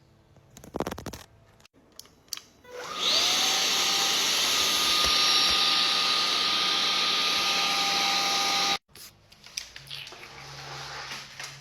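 A Dyson-style vacuum cleaner motor starts about three seconds in with a rising whine and runs steadily, a high whine over a rush of air. It cuts off suddenly about six seconds later. Clicks and handling noise come before and after.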